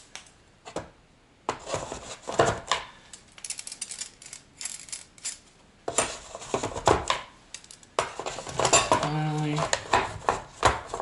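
Brass cleaning-rod sections and metal fittings clinking and clattering as they are handled and set back into a wooden case, in a run of irregular clicks and knocks.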